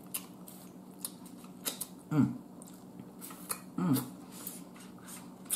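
Eating snow crab legs: sucking and slurping the meat out of the shells, with many small sharp clicks and cracks of shell. Twice, about two and four seconds in, a short voiced hum that falls in pitch stands out louder than the rest.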